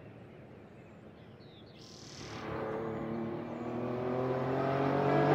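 Vintage Porsche 911 engine approaching under acceleration: from about two seconds in its pitch rises slowly and it grows steadily louder. A few faint bird chirps come before it.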